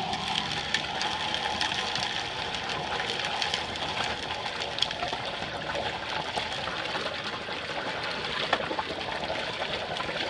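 High-pressure hydro-jetting inside a scaled, corroded 4-inch cast iron drain pipe: a steady rush of water from the jetter at 4,000 PSI and 18 gallons a minute, blasting scale off the pipe walls, with a few faint ticks scattered through.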